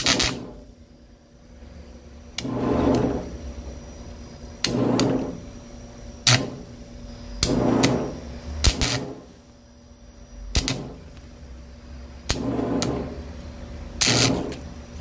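Electric welder laying short tack welds onto the worn impact tip of a drill shaft to build it back up: about seven bursts of about a second each, with a low buzz, separated by sharp clicks.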